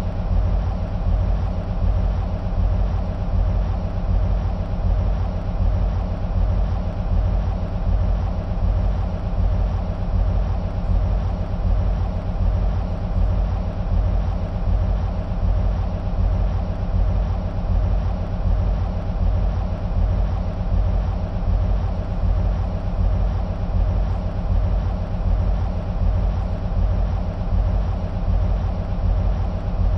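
EMD SW1500 switcher locomotive's 12-cylinder two-stroke diesel (EMD 12-645E) idling: a steady, low, evenly pulsing throb that holds unchanged throughout.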